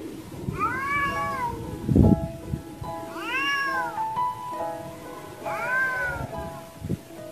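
Tabby cat meowing three times, each call rising and then falling in pitch, over soft background music with held notes. A low thump comes about two seconds in.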